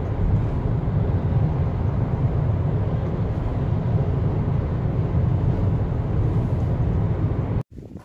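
A car driving, heard as a steady low rumble of road and engine noise that cuts off abruptly near the end.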